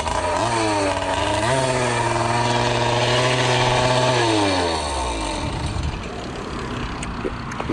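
Small motorized-bicycle kit engine running at high revs, climbing a little higher about a second and a half in, holding there, then falling back to a lower speed near the middle. The engine is over-revving, which the owner suspects comes from an air leak at the carburetor.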